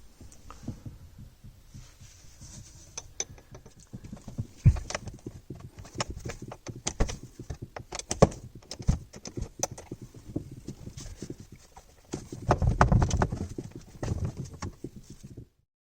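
Irregular clinks and knocks of hand tools and metal parts during work on a marine starter motor, with a denser, louder clatter about three-quarters of the way through. The sound cuts off suddenly near the end.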